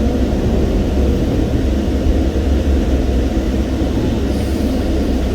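Car engine idling with a steady low rumble, heard from inside the cabin.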